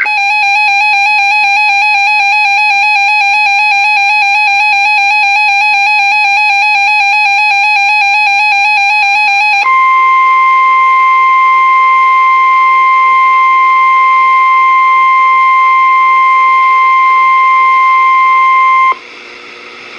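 Weather-radio alert tones: a loud, warbling, buzzy tone for about ten seconds, then an abrupt switch to a steady, higher single tone, the NOAA Weather Radio 1050 Hz warning alarm tone that signals a warning such as a flood warning is about to be read. The tone cuts off about a second before the end.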